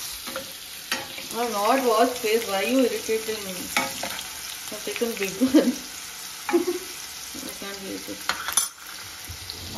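Chopped onions frying in hot oil with mustard seeds, sizzling steadily, while a spatula stirs them, scraping and clicking against the pan. A wavering hum sounds over it between about one and three seconds in.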